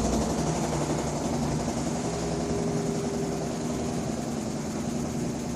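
Washing machine running with a loud, steady mechanical hum, slowly getting quieter. The noise is abnormal enough that the owner fears the machine is about to blow apart.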